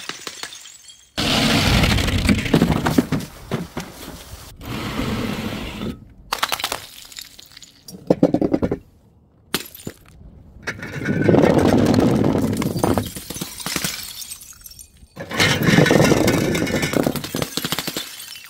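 A run of separate drop impacts: paint-filled balloons and containers hitting a tiled floor from height, bursting and splattering, with a breaking, crunching edge. Each impact starts suddenly and loud and trails off over a second or two before a sharp cut to the next.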